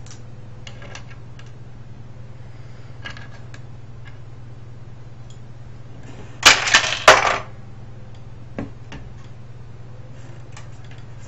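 Light clicks and taps from small metal and plastic parts of a cassette recorder being handled during disassembly. About six and a half seconds in comes a loud metallic clatter lasting about a second.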